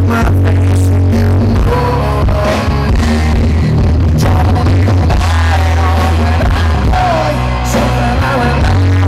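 Loud live rock music from a band with electric guitars, heard from within the crowd and heavily distorted by the recording. A sung melody comes in over the band about two seconds in.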